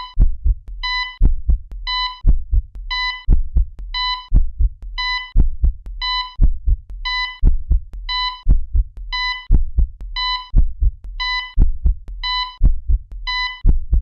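Heartbeat sound effect: low thumps paired with a short electronic beep, repeating evenly about once a second, like a heart monitor.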